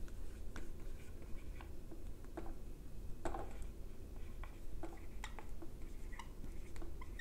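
Dry-erase marker writing on a whiteboard: a run of short, irregular squeaks and scratches as the strokes are drawn.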